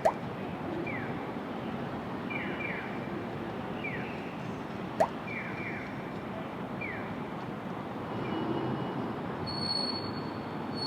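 Railway station ambience: a steady background hum with short falling electronic-sounding chirps repeating every second or so, and two sharp clicks about five seconds apart. A brief high beep sounds near the end.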